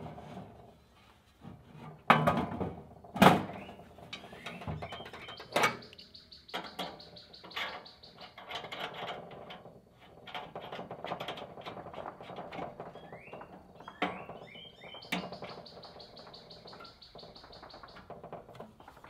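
Steel griddle top and base of a Blackstone 17-inch tabletop griddle being set in place and handled: two loud metal clunks about two and three seconds in, then scattered knocks and rustling as parts are fitted. A high steady ringing tone comes and goes twice, with short bird chirps.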